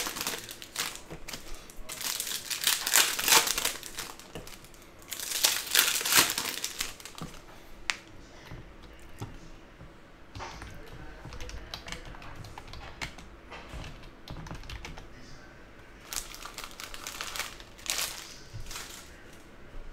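Foil trading-card packs crinkling and rustling as they are handled and opened, in several short spells, with scattered light clicks and taps of cards between them.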